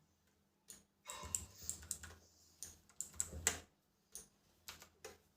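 Keys pressed on a Cosmic Byte CB-GK-16 Firefly mechanical keyboard: a quick run of keystrokes over a couple of seconds, then a few single presses near the end.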